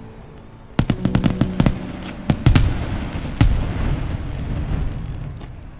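Fireworks going off: a quick run of sharp cracks starting about a second in, heavier bangs about two and a half and three and a half seconds in, then a low rumble that fades away.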